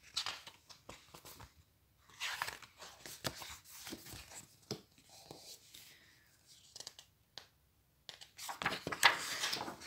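Paper rustling and crinkling as a picture book's cover and pages are handled and turned, in a string of short scrapes, loudest near the end as a page is turned.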